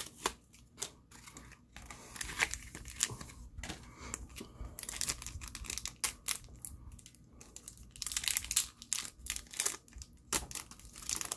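Plastic wrapper of a Bakugan trading-card booster pack being torn open and crinkled by hand, in quick sharp crackles, with two louder spells of crinkling about five and eight seconds in.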